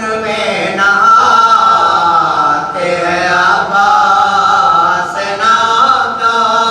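Melodic chanting of Urdu mourning poetry, with voices held in long, wavering notes, in the style of Shia marsiya or noha recitation.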